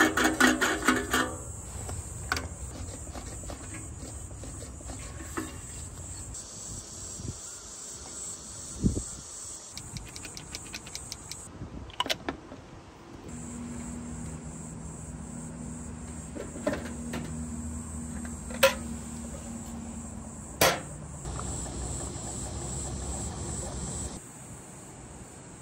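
Crickets chirping in a steady high trill, with the background changing abruptly several times. A few sharp clicks or knocks come through, and a low steady hum runs through the middle stretch.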